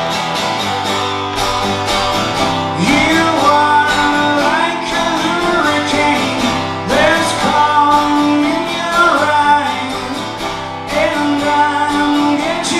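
Live band music with guitars: an instrumental passage between sung lines, with a lead line whose notes bend in pitch.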